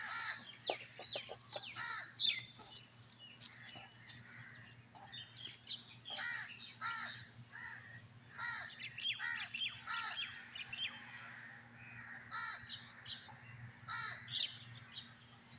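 Birds calling in the surrounding trees: a string of short chirps and caws, crows among them, coming in clusters every second or two.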